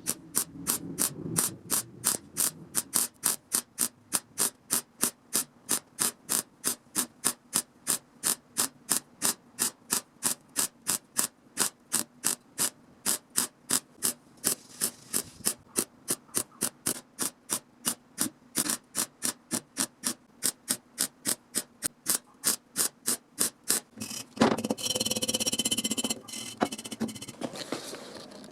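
Steady back-and-forth strokes of a hand tool working metal, about three strokes a second, followed near the end by a few seconds of continuous hissing.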